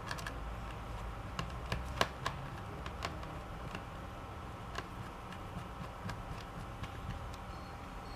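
Irregular light clicks and taps of small laptop parts being handled on an opened Lenovo V130 notebook, the loudest about two seconds in, over a steady low hum.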